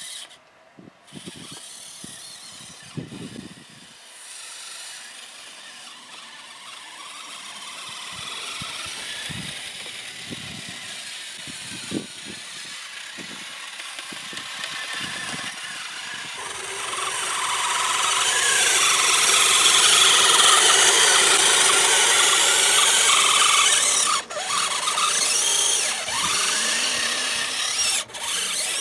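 Electric motor and gear drive of a Kyosho Blizzard RC tracked snowcat whining as it runs. It grows louder past the middle and cuts out briefly three times near the end.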